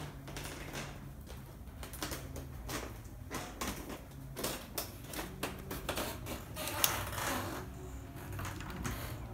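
Footsteps and handling noise of a walking person: irregular soft taps and clicks, with one sharper click about seven seconds in, over a low steady hum.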